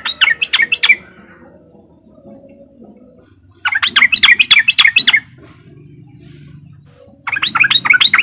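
Yellow-vented bulbul giving its rapid chattering 'riwik' call in three bursts of quick, sharp notes, about seven a second: one ending about a second in, one around four to five seconds in, and one starting near the end.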